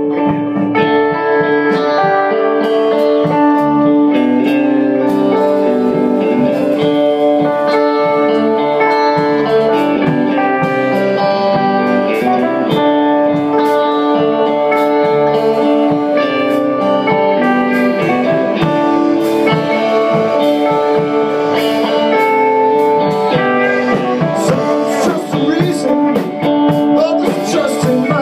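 A band playing blues-style music led by guitar, with held notes and some singing.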